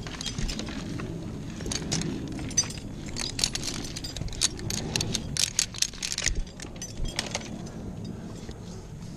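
Small metal objects clinking and jangling: scattered sharp clicks, then a dense flurry of them from about three to six seconds in.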